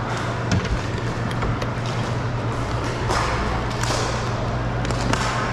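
Floor hockey play: a few scattered sharp clacks and knocks from plastic sticks and the ball over a steady low hum and general gym noise.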